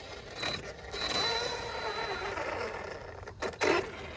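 Losi 8ight X Super Lasernut RC buggy's electric motor and drivetrain whining as it drives, the pitch wavering up and down with the throttle. There is a short loud sound near the end.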